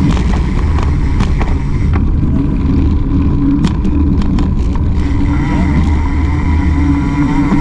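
A small motor on a mountain bike running steadily as the bike rolls along, with a run of short rattling clicks in the middle as it crosses rough, cracked pavement.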